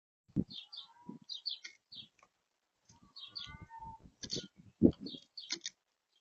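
Birds chirping in quick clusters of short, high notes, with a few lower sliding calls. Several short, loud thumps fall among them, the loudest a little before the end.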